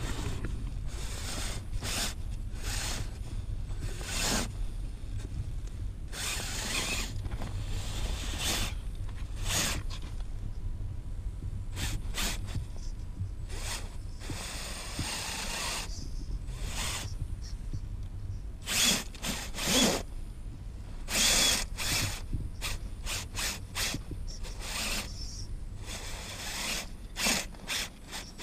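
Axial Capra RC rock crawler climbing a steep bank of loose stones: a long run of short crunches and scrapes as its tyres grip and slip on gravel and rock, with the whir of its electric motor and gears, over a steady low rumble. The loudest crunches come in a cluster a little past the middle and again near the end.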